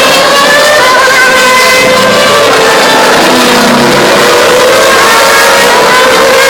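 Formula One cars' engines running at high revs on the circuit, several pitched notes overlapping and gliding up and down as the cars accelerate and shift gears. Very loud and even throughout.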